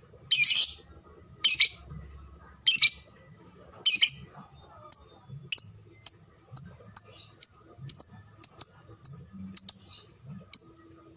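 Lovebird calling in a series of sharp, high chirps. Four loud calls come about a second apart, then shorter clipped notes quicken to about two a second.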